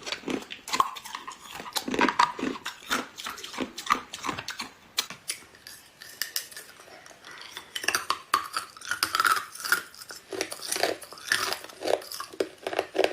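Ice being bitten and crunched in the mouth close to the microphone: a fast, irregular run of sharp cracks and crunches that thins out for a couple of seconds in the middle.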